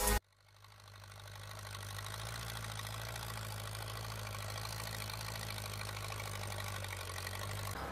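Farm tractor's diesel engine running with a steady low drone while pulling a disc plough, fading in over the first couple of seconds.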